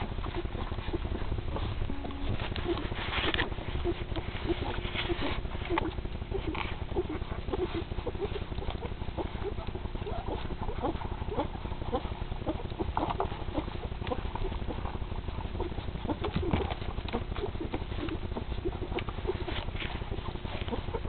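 Newborn puppies nursing in a huddle, making many short, small squeaks and grunts with soft sucking clicks.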